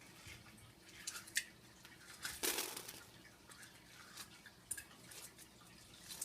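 Slime being handled, with faint sticky clicks and crackles and a louder crackling burst about two and a half seconds in.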